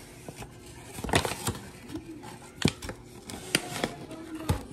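Paper flour bag rustling and crinkling while a measuring cup is dug into the flour, with a few sharp knocks and scrapes of the cup.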